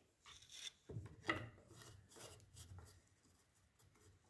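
Faint handling of wood: a wooden workpiece slid along the mortiser's fence and a thin spacer strip set against it, making a few light scrapes and knocks, the loudest a little over a second in.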